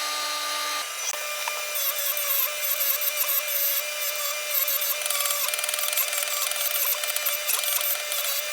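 Electric grinder running and grinding steel: a steady motor whine with a rough, scratchy hiss, changing about a second in as the work is pressed to it.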